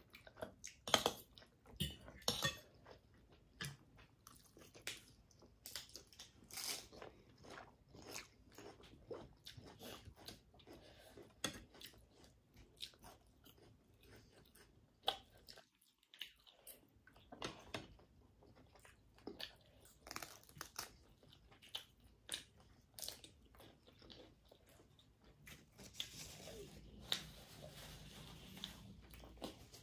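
Quiet, close-miked eating: chewing and biting spicy noodles and octopus, a string of irregular soft clicks and crunches. Near the end there is a brief soft rustle of a paper tissue.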